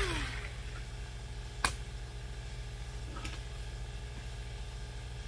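Compressed-air tool with a fine Scotch-Brite Roloc disc spinning down after the trigger is released, its pitch falling quickly. A sharp click follows about one and a half seconds in and a fainter one about three seconds in, over a steady low hum.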